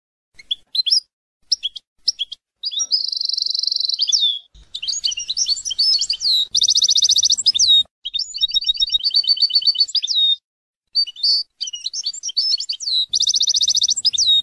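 European goldfinch singing: quick twittering notes and fast buzzy trills, in phrases broken by several dead-silent gaps, stopping abruptly at the end.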